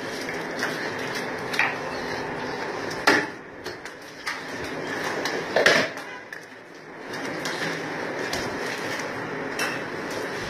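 Butcher working on a freshly slaughtered animal's carcass: a handful of sharp knocks at irregular intervals, the loudest about three and six seconds in, over a steady background noise.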